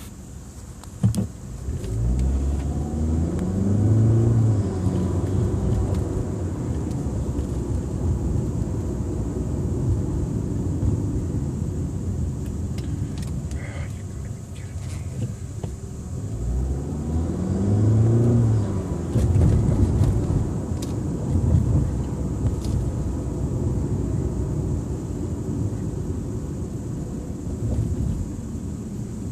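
Kia Optima 2.0T's turbocharged four-cylinder engine, heard from inside the cabin, accelerating twice with the engine pitch rising, about two seconds in and again around the middle. Turbo and blow-off valve sounds come through loudly because an Injen short ram intake has been fitted.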